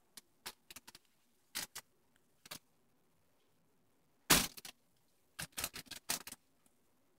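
Crinkly lining of a cat play tunnel crackling in short, irregular bursts as a cat paws at it from inside. The loudest crackle comes about four seconds in, followed a second later by a quick run of several crackles.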